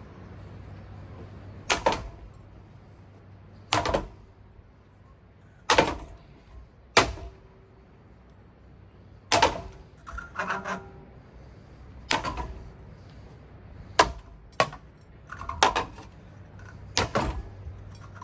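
Repeated hard smashing blows, about one every one to two seconds, each a sharp crack followed by a brief clatter of breaking plastic and loose pieces, over a faint steady low hum.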